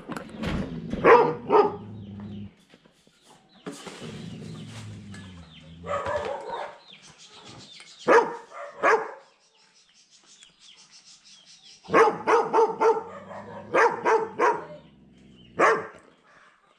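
German Shepherd barking loudly in bursts: several barks in quick succession, then short pauses before the next volley.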